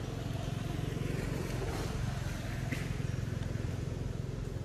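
Steady low mechanical hum, with a single faint click a little past the middle.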